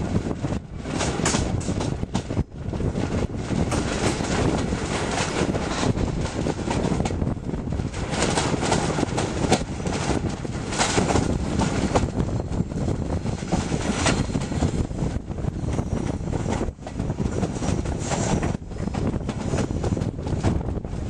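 Diesel-hauled passenger train in motion, heard from an open carriage window: wheels rumbling and clattering over the rails, with wind buffeting the microphone.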